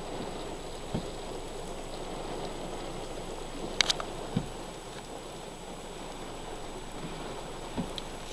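Heavy rain pouring in a steady downpour, with gusty wind. A few dull thumps and one sharp tap stand out from the rush, the tap a little before the middle.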